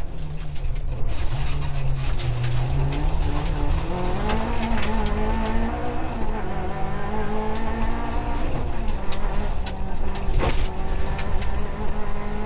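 Rally car engine heard from inside the cockpit at speed: low for the first few seconds, then climbing sharply about four seconds in and holding high. Sharp knocks and rattles from the car come through throughout.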